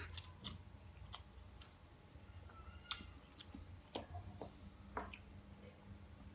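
A man chewing a mouthful of fried instant noodles close to the microphone: faint wet chewing with soft clicks scattered every second or so, over a low steady hum.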